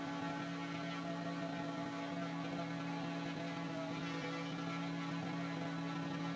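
Random orbital sander running steadily over a cured epoxy resin and wood-slice tabletop, giving an even, unbroken motor hum.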